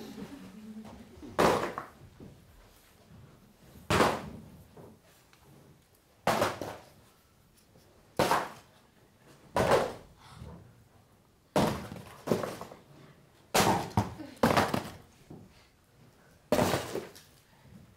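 Flat cardboard-and-foil cutout figures thrown one after another onto a dirt floor, landing with about ten separate thunks a second or two apart, each with a brief rattle after it.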